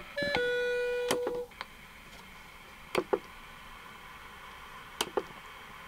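Electronic beeps from the tr(u)SDX transceiver: a short beep, then a steady tone about a second long. These are followed by a few pairs of sharp clicks over a faint steady hiss.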